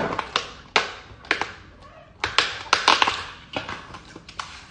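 Plastic food packaging being handled and opened: irregular crinkles and sharp clicks, busiest in the first three seconds and thinning out toward the end.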